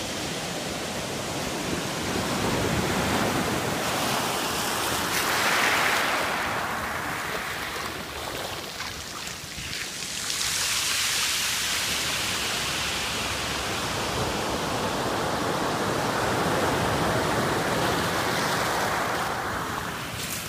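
Ocean surf: waves breaking and rushing, the noise swelling and falling back three times, roughly every six seconds.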